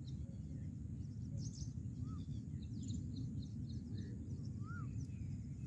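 Open-air ambience: a steady low rumble with small birds calling over it. A high chirp repeats in short series, and two short whistled notes rise and fall, about two seconds in and near the end.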